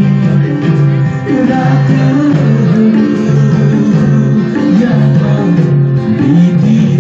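Live band music from a Nepali pop concert, loud and continuous: a gliding melody line over guitar accompaniment.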